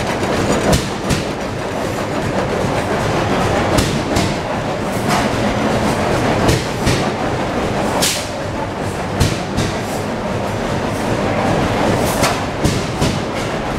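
Several antique stationary engines running together: a steady mechanical clatter with sharp clacks at irregular intervals.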